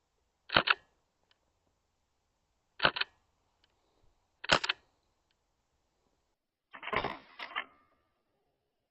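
Airsoft gun firing: three single sharp shots about two seconds apart, then a longer clattering burst of several quick reports near the end.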